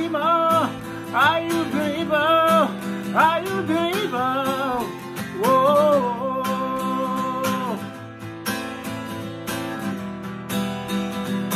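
Man singing to his own strummed acoustic guitar, in short phrases that end on one long held note about seven seconds in. After that the acoustic guitar goes on strumming alone.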